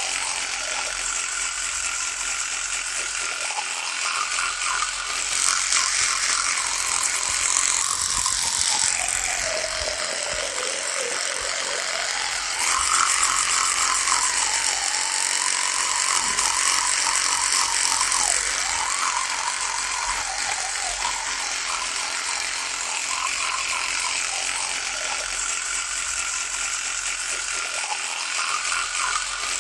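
Electric toothbrush buzzing continuously. Its motor tone sinks in pitch about a third of the way in, then climbs back and wavers through the middle.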